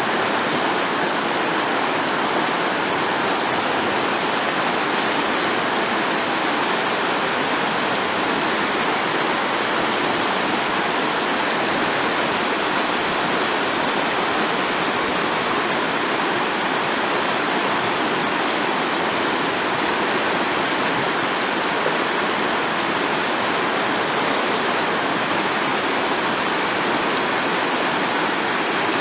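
A rocky river rushing over stones and small rapids: a steady, even rush of water that does not change.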